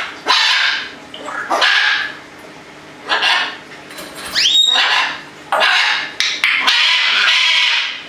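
An African grey parrot and a red macaw calling: a run of harsh, noisy squawks, with a rising whistle about halfway through. The last call is drawn out for over a second.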